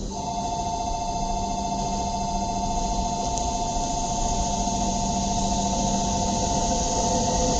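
E2 series Shinkansen pulling into the station and running past the platform, its rumble growing steadily louder. A steady high two-note whine starts abruptly at the outset and holds over it.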